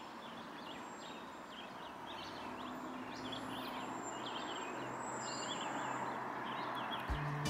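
Songbirds chirping in a dawn chorus, many short overlapping chirps, over a steady background hiss of outdoor air.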